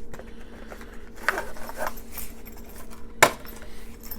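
A knife cutting open a cardboard shipping box: short scraping and rustling sounds, then one sharp click about three seconds in.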